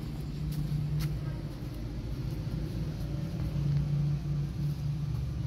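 A low, steady rumble, with a single sharp click about a second in.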